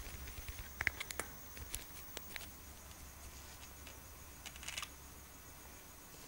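Faint scattered ticks and scratches over a low steady hum: kittens moving about on a fabric cat bed, with the camera handled close by. A few ticks come about a second in, with another short cluster near the end.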